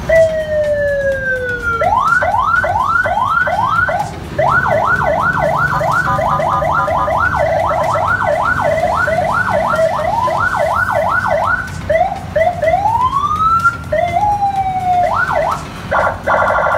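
Senken electronic ambulance siren sounding through its roof speaker, switched between tones: a falling tone, then quick rising whoops about three a second, a fast up-and-down yelp, a slow rising wail, and near the end a rapid pulsing warble.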